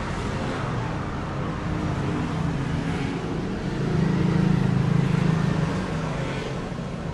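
Steady low rumble of road traffic, growing louder about four seconds in and easing off toward the end.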